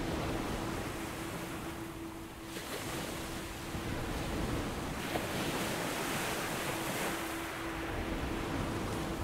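Ocean waves washing and surging, swelling louder about halfway through, over a faint steady hum.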